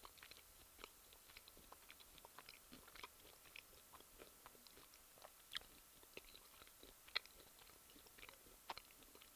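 Faint chewing of a Snickers bar close to a headset microphone: scattered soft mouth clicks, with a few sharper clicks around the middle.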